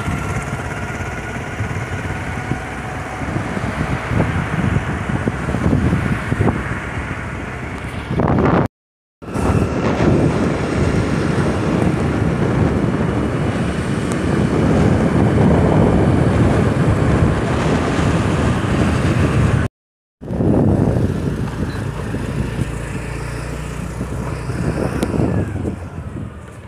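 Road noise from riding a motor scooter: wind buffeting the microphone over the scooter's engine and passing traffic. It comes in three stretches, broken by two brief total silences where the clips are cut together.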